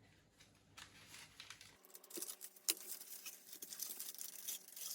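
Faint rustling and light clicks of plant packaging being handled, with one sharper click near the middle.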